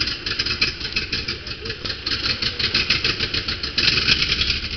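TAM 190 A 11 bus's diesel engine running with a rapid, even clatter just after its first start, blowing thick exhaust smoke. It gets louder for a moment near the end.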